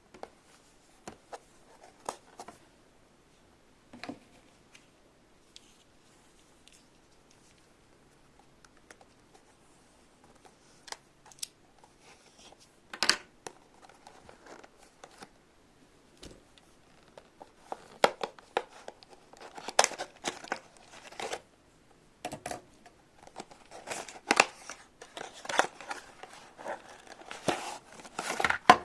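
Hands crinkling and tearing packaging, with light clicks and taps of small plastic pieces. The sounds are sparse at first and get busier and louder in the second half.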